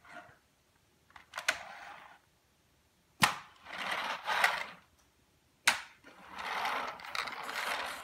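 A vacuum cleaner's wheeled floor head pushed and pulled across a wooden floor in three short sliding strokes, each starting with a sharp knock; no motor is heard running.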